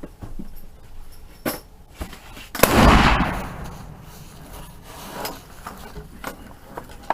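A single loud rifle shot about two and a half seconds in, its report echoing away over about a second. Several fainter sharp pops come before and after it.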